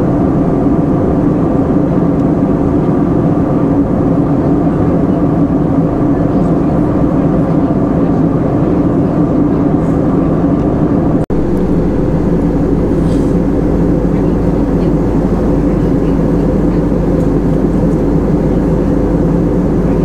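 Jet airliner cabin at cruise: the steady drone of the engines and rushing air, with several humming tones in it. About eleven seconds in there is a split-second dropout, and after it the drone goes on with a stronger deep hum.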